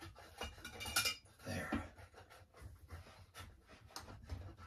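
Small plastic scraper scraping and clicking against a pot as leftover spaghetti sauce is cleared out, in short irregular strokes with a louder scrape about a second in.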